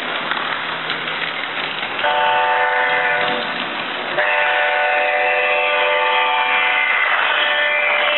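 HO-scale model diesel locomotive's sound-unit horn sounding a chord of steady tones: a short blast about two seconds in, then a longer blast from about four seconds on. Under it runs the noisy rolling of the model train on its track.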